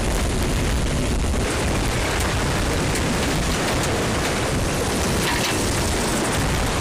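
Strong wind buffeting the microphone and sea water rushing past a sailing yacht's hull as it sails fast through rough seas, heard as a steady, loud rush of noise.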